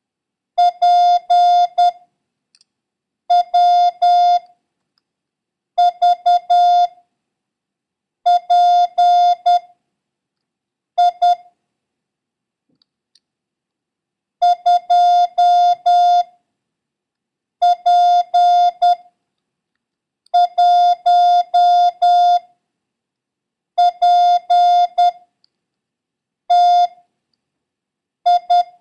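Morse code characters sent as a clean electronic beep at one steady pitch, each letter or number a quick group of dits and dahs, with a pause of one to three seconds between characters. It is a code-practice run of random letters and numbers, sent for copying by ear.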